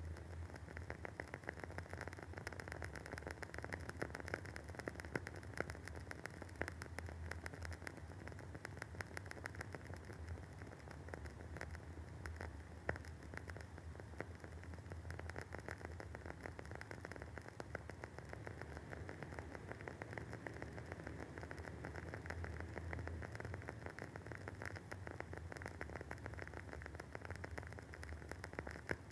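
Wooden candle wick burning with a steady rapid crackle of small pops, and a few louder pops (one about 13 seconds in), over a low steady hum.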